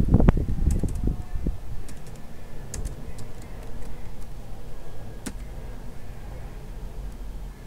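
Typing on a computer keyboard: scattered key clicks, with a few heavier low thumps in the first second or so. A steady low hum runs underneath.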